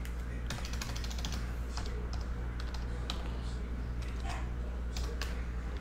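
Keys clicking on a computer keyboard: a quick run of keystrokes about a second in, then scattered single clicks, over a steady low electrical hum.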